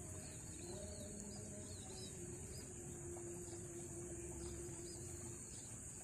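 Steady high-pitched drone of insects, with short, thin chirps from a flock of munias, most of them in the first two seconds. A low steady tone comes and goes underneath.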